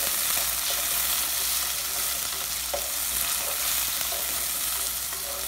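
Chopped tomatoes and onions sizzling in hot oil in a clay pot as they are stirred: a steady frying hiss with a few light clicks from the stirring.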